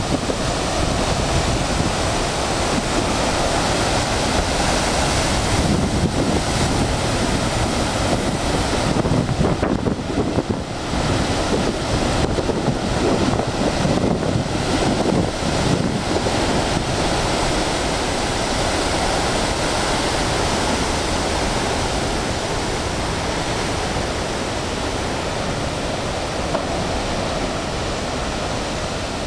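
Heavy ocean surf breaking and churning white water over a rocky shore, a continuous loud rush of water with wind buffeting the microphone. It eases a little near the end.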